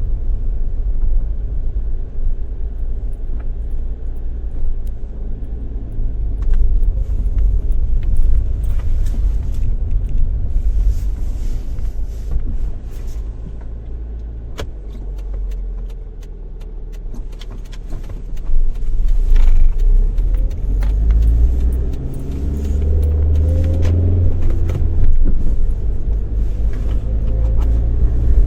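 Car driving, heard from inside the cabin: a steady low engine and road rumble with small rattles and clicks. In the last third the rumble gets louder and the engine note climbs as the car accelerates.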